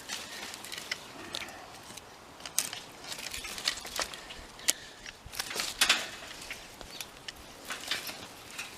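Irregular snapping, clicking and rustling of willow branches and twigs being cut with a knife and pulled out of the brush.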